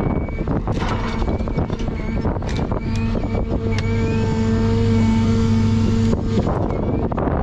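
John Deere 1010G forwarder's diesel engine running under hydraulic load, with the whine of the crane hydraulics as the grapple swings a bundle of spruce logs onto the load, and scattered knocks of logs settling. The engine and hydraulic tone holds strong through the middle, then drops back suddenly about six seconds in.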